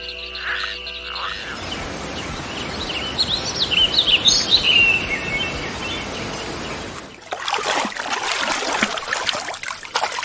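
A frog croaking in short pulses for about a second, then a steady hiss with a bird's high chirps in the middle, then from about seven seconds in a crackling sound like splashing water.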